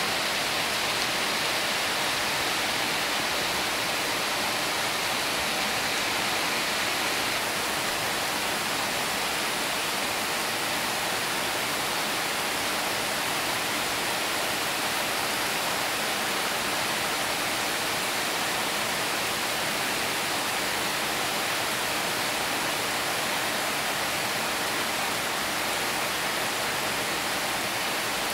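Heavy rain pouring on corrugated tin roofs and trees: a steady, even hiss.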